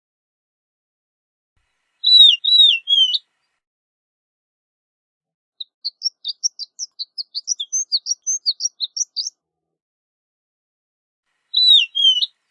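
Horned lark singing: a short phrase of three down-slurred notes about two seconds in, then a quick run of thin, high notes lasting almost four seconds, and another short slurred phrase near the end.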